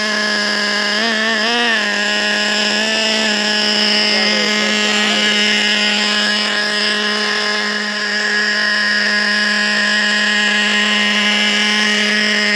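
Traxxas Revo 3.3's two-stroke nitro glow engine, new and being broken in, running at a steady high idle. The pitch wavers slightly a few times in the first two seconds, then holds level. The idle is kind of high and is about to be adjusted.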